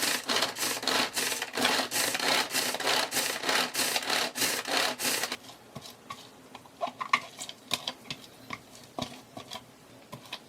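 Rhythmic rubbing or scrubbing strokes, about three a second, stopping about five seconds in; scattered light clicks and taps follow.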